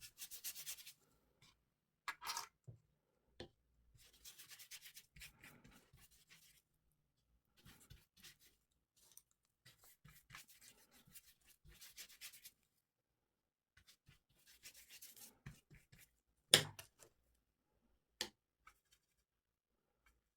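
Watercolour brush stroking and rubbing across rough Arches watercolour paper in soft, scratchy strokes a second or two long. A few sharp taps or knocks come between them, the loudest about three-quarters of the way through.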